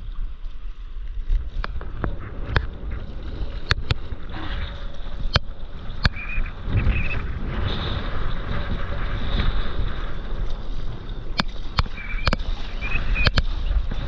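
Water splashing and rushing along a stand-up paddleboard as it is paddled, with wind rumbling on the microphone. Sharp clicks come every second or two.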